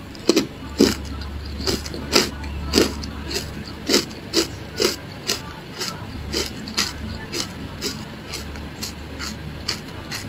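Close-up crunching of frozen matcha ice chewed with the mouth closed. Crisp crunches come about twice a second and grow softer after the middle as the mouthful breaks down.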